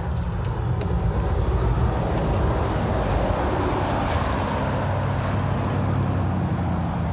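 2006 Dodge Charger engine running steadily with a rod knock.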